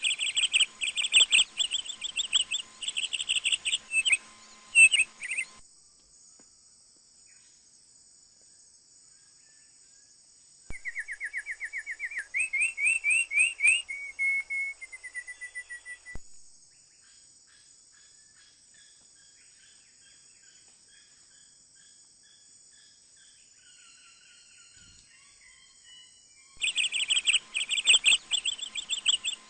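Birdsong: bursts of rapid, high-pitched chirping at the start and again near the end, and a run of rising trilled notes in the middle, over a faint steady high-pitched drone.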